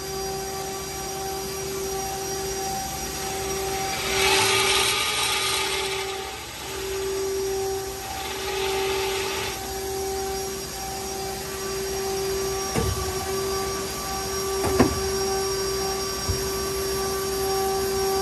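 Nakamura Tome WT100MMY CNC turning center running a cycle with no part being cut: a steady drive whine, two stretches of hiss a few seconds apart, then two sharp clunks about two seconds apart and a lighter one as the turrets move.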